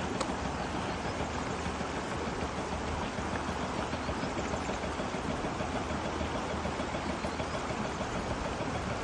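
Rushing river water running over rocks, a steady even noise with no break.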